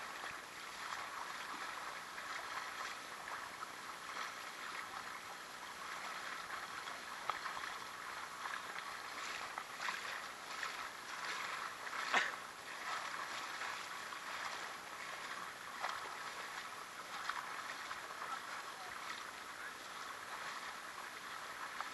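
Shallow creek water gurgling and lapping close to the microphone as it floats downstream, with scattered small splashes and one sharper splash about twelve seconds in.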